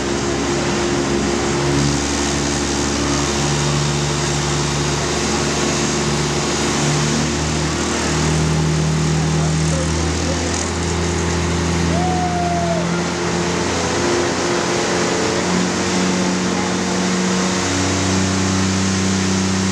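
Diesel pickup truck engine running loud and held at high, steady revs under load during a pull. Its hum steps up in pitch a few times.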